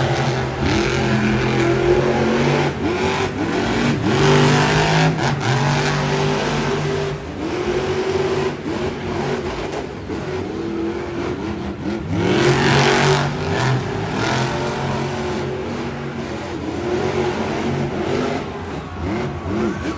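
Monster truck engines, supercharged V8s, revving hard on the throttle, their pitch climbing and dropping back over and over as the trucks race.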